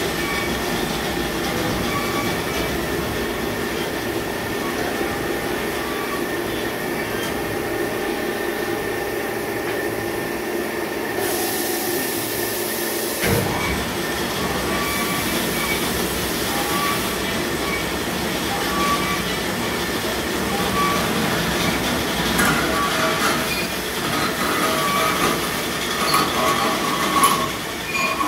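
Amada HA-400 automatic band saw running: a steady mechanical hum with several whining tones. A burst of hiss comes about eleven seconds in, a sharp knock follows about two seconds later, and the tones turn more uneven near the end.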